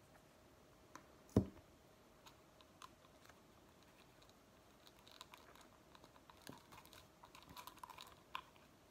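Quiet paper-craft handling at a table: one knock on the tabletop about a second and a half in, then faint rustling and small clicks as fingers press a glued paper door onto a cardboard toilet roll.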